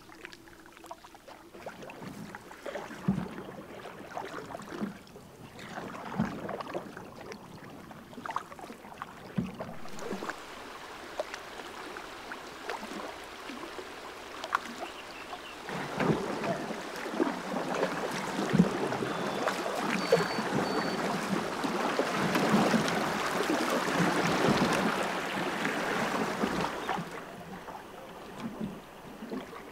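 Canoe paddles dipping and pulling through calm water, with small splashes, drips and clicks from the strokes. The water sound grows fuller and louder through the second half.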